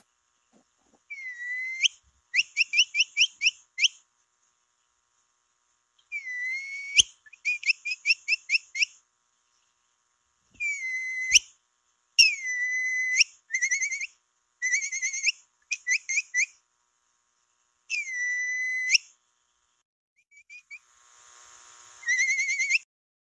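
Capybara call (piu) sounding a string of whistled phrases: a held note, often followed by a quick run of short chirps at about eight a second, repeated several times with short pauses.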